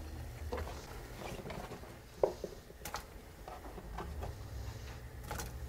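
Chunks of peeled sweet potato tipped off a wooden chopping board into a pot of boiling water: a few scattered soft knocks and taps, one sharper knock about two seconds in, over a low steady hum.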